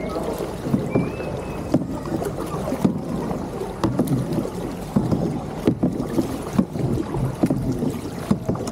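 Kayak paddling: paddle blades splashing into the water with irregular knocks, several a second at uneven intervals.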